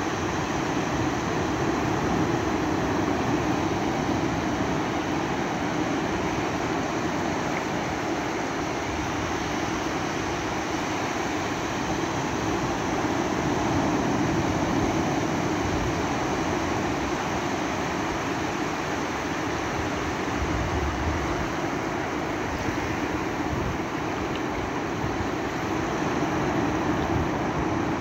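Ocean surf breaking offshore and washing up a flat sandy beach: a steady rushing that swells gently every ten seconds or so as sets of waves come in.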